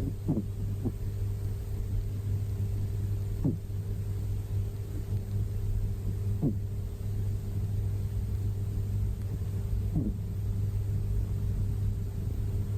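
Sleeping cat snoring: a short falling snore about every three seconds, four in all, over a steady low rumble.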